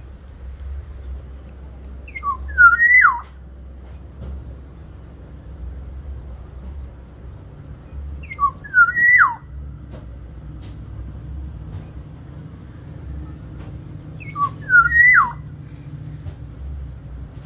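Black-naped oriole (kepodang) singing: three short fluty whistled phrases about six seconds apart, each climbing through a few notes and ending in a quick falling note, over a low steady hum.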